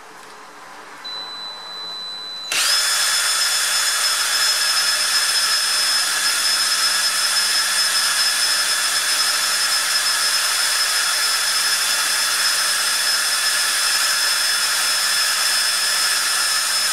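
Ryobi cordless drill starting suddenly about two and a half seconds in and running at steady full speed with a whine, spinning the shaft of a water-pump motor rebuilt as a magnet generator. Near the end it winds down and stops.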